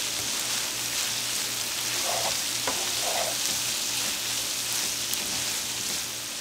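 Ground sausage and sliced mushrooms sizzling in a nonstick frying pan as a spatula stirs through them, with one sharp click about two and a half seconds in. The sizzle eases slightly near the end.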